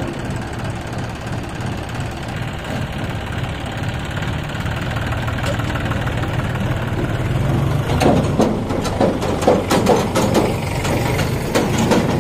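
John Deere 5050D tractor's three-cylinder diesel engine running as it pulls a loaded trolley away. From about eight seconds in, a run of sharp clanks and rattles sounds over the engine and is the loudest part.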